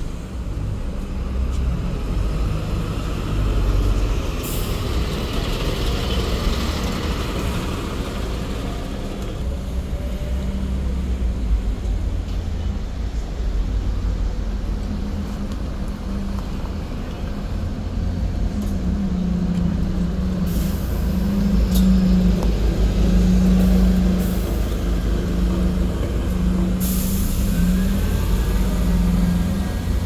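City buses in motion: a Volvo B8RLE diesel bus pulls away, then a Mercedes-Benz OC500LE CNG bus drives past, its engine a steady drone in the second half. Short hisses of air from the brakes come a few seconds in and again twice near the end.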